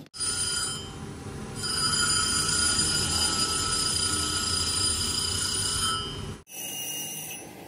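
A power tool working steel, giving a steady high metallic whine with a ringing overtone over a rough grinding rumble. It gets louder about a second and a half in, and cuts off abruptly twice.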